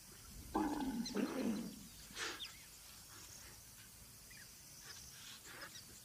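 Spotted hyena retching and gagging on dried hide it has swallowed: two rough heaves about half a second and a second in, then a shorter one near two seconds.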